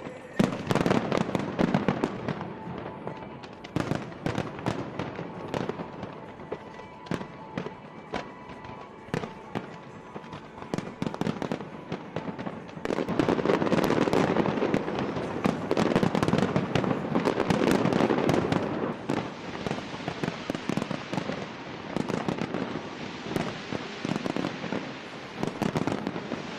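New Year fireworks display: a steady run of bangs and crackling bursts, thickening into a dense, louder barrage about halfway through before thinning again.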